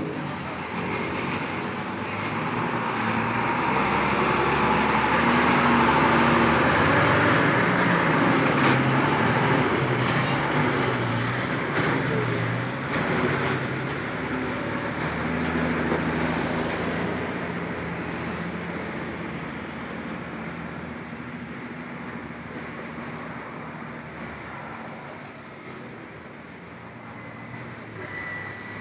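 Truck-and-trailer passing, its engine and tyre noise swelling to a peak about six seconds in and then fading. Through it a deep ship-style air horn sounds in held notes that step from one pitch to another.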